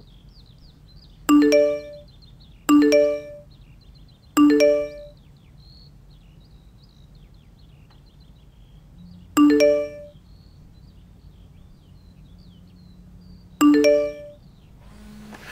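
Phone message notification chime sounding five times: three in quick succession about a second and a half apart, then two more several seconds apart, each a short ringing ding as a chat message arrives.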